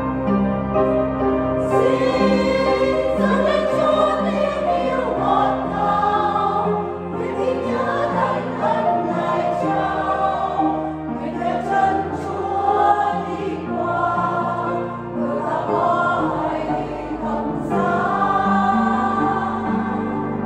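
Church choir singing a Vietnamese hymn in harmony, over held low notes.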